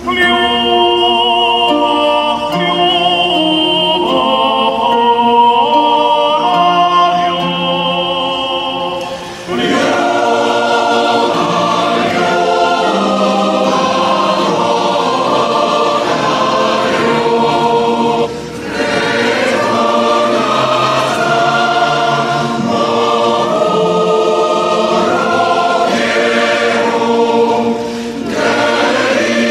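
Choral music: a choir singing long held notes with vibrato, broken by short pauses between phrases.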